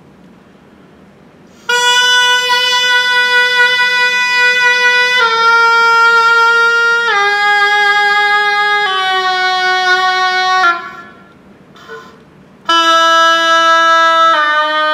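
Oboe playing a slow descending scale, one long held note after another, each a step lower than the last. It starts a couple of seconds in, four notes step down, a short break for breath follows, then the scale carries on lower.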